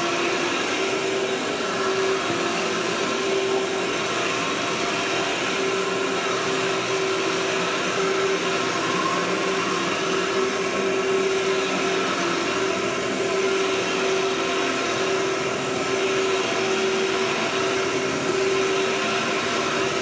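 Canister vacuum cleaner with a powered carpet head running steadily as it is pushed over carpet: an even rush of air with a constant motor tone under it.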